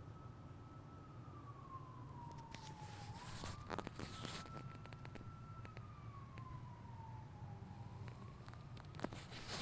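Faint siren wailing, one tone slowly rising and falling about every four seconds. A few sharp clicks and rustles of handling come in the middle and near the end.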